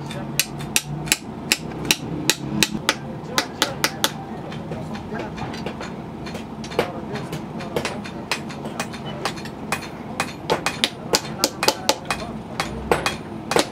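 Hammer striking metal on an anvil in sharp, ringing blows, two or three a second at an uneven pace, with a pause of about two seconds partway through.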